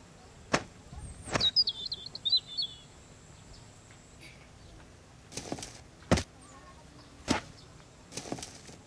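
Several sharp knocks and clacks with short rustles as a becak (cycle rickshaw) is handled. A bird gives a wavering high chirping call after about a second and a half.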